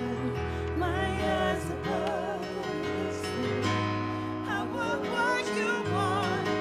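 Live worship music: a woman singing with wide vibrato into a microphone over held bass notes and sustained chords from the band.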